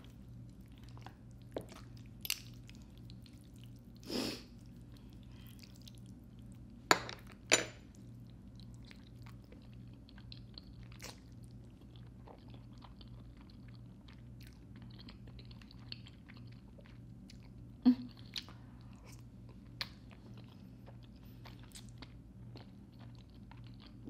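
Close-up eating sounds of a person chewing a mouthful of fettuccine Alfredo noodles: soft wet chewing with scattered faint clicks and a few sharp louder clicks, the loudest about 7 and 18 seconds in. A steady low hum runs underneath.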